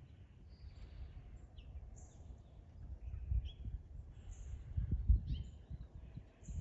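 Songbirds chirping in short, high notes, repeated every second or so, over low rumbling wind noise on the microphone that swells in gusts about three and five seconds in.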